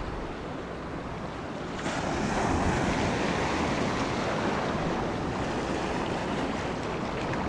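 Surf washing and foaming over a shallow rocky reef: a steady rush that grows louder about two seconds in, with wind on the microphone.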